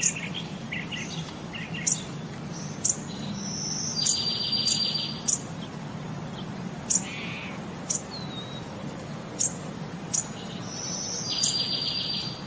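Birds chirping: short, sharp high chirps every second or so, with a rapid trill twice, over a steady low hum.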